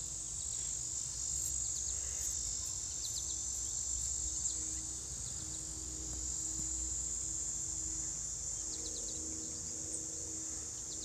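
Insects trilling in a steady, high-pitched chorus, with a few short high chirps about three seconds in and again near nine seconds.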